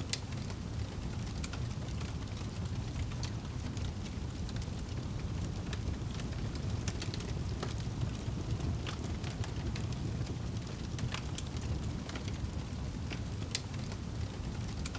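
Wood fire crackling in a fireplace: scattered sharp pops and snaps over a steady low rumble of the flames.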